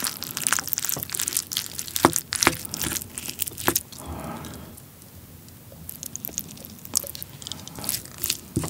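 Wooden spoon mixing sticky cooked rice with butter and soy sauce in a ceramic bowl: a dense run of small clicks, scrapes and sticky crackles, with a softer, quieter stretch about halfway through.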